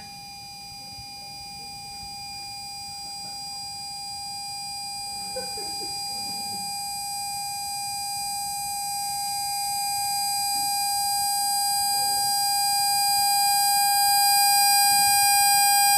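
A loud, steady pure tone played through a speaker driver set against a glass beaker, tuned to the beaker's resonant frequency and growing steadily louder to drive the glass toward shattering.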